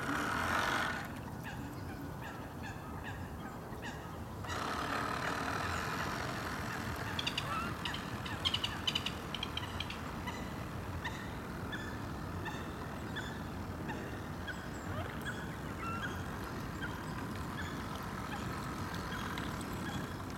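Waterfowl calling over and over, thickest about seven to nine seconds in, over the steady running of a radio-controlled model speedboat's motor.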